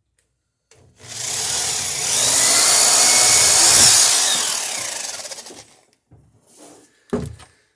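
Power drill boring through wooden dory planking for about five seconds, its pitch rising as it bites and then falling away. A few short knocks follow near the end.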